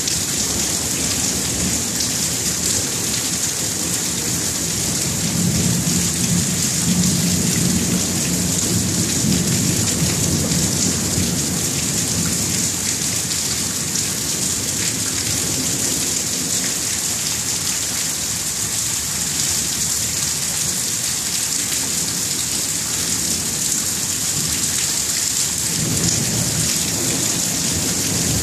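Thunderstorm: steady rain hissing, with low rolling thunder that swells from about five to eleven seconds in and rumbles again near the end.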